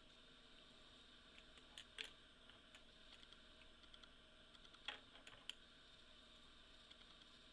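Near silence: a faint steady hum with a few scattered small clicks and taps, the two loudest about two seconds in and about five seconds in.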